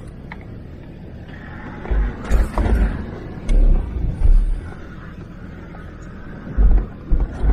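Land Rover Discovery diesel engine running at low speed, heard from inside the cab. Several heavy low thumps come from about two seconds in as the vehicle jolts over the rocky track.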